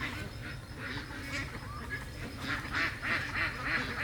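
Domestic ducks quacking, many calls overlapping, coming thicker and louder in the second half over a steady low rumble.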